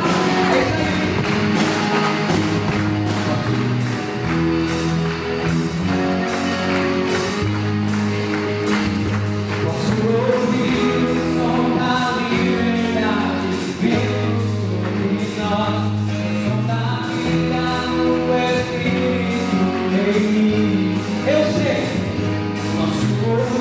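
A band playing a song, gospel-style: a steady drum beat under a bass line and sustained chords, with a melodic line above.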